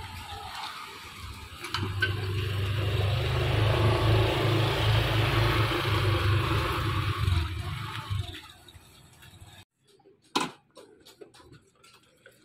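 Small motor scooter engines running as the scooters ride past along a lane, loudest in the middle and fading out about eight seconds in. After that there is a quiet stretch with a few short knocks.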